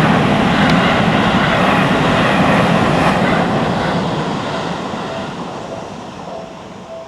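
Seibu Ikebukuro Line train running over a level crossing, its rumble and wheel noise loud at first, then fading steadily as it moves away.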